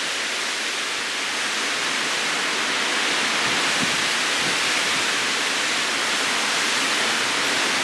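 Steady hiss of a heavy thunderstorm downpour and strong wind, growing a little louder about a third of the way in.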